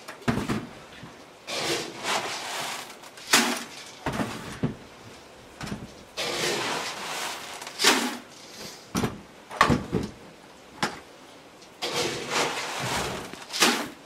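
Dry pig feed being scooped and poured into plastic buckets in several pours of a second or two each, with sharp knocks of the scoop and buckets in between.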